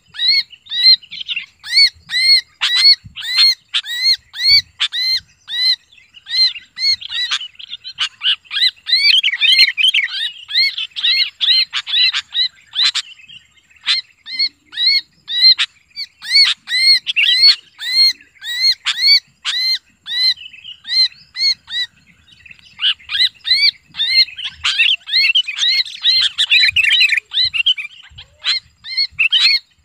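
Sooty-headed bulbul screaming in distress while held in the hand: loud, harsh call notes repeated about once a second. About a third of the way in and again near the end, they break into faster, jumbled calling.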